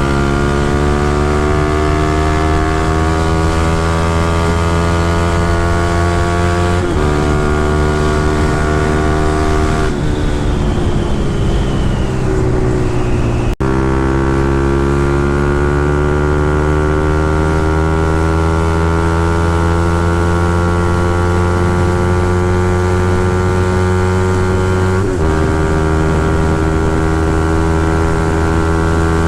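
Honda CB150R's single-cylinder engine pulling under load, its note climbing steadily with a gear change about seven seconds in. Around ten seconds in it eases off with a falling note, then after an abrupt break it climbs again, with another gear change near the end.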